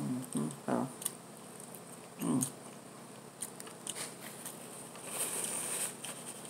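Close-up chewing and lip smacking with scattered sharp mouth clicks and a few short voiced murmurs. A paper napkin rustles across the mouth about five seconds in.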